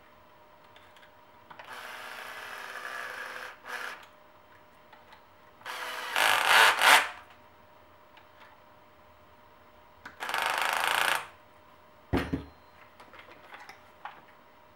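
Power driver running in three short bursts as it turns screws on an RC truck chassis. The middle burst is the loudest, and a short knock follows near the end.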